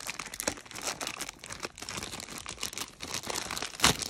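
Plastic packaging crinkling and rustling as a hair-brush attachment is handled and unwrapped, with small clicks throughout and one sharp louder click near the end.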